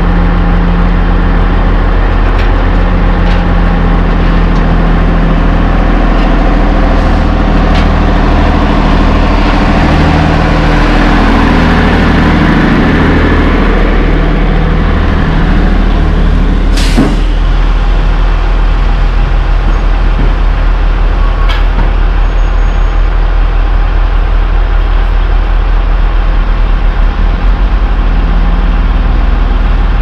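Heavy diesel dump trucks running, one with a pup trailer passing close and loudest about halfway through. A short, sharp air-brake hiss comes just after it passes, and a fainter one a few seconds later.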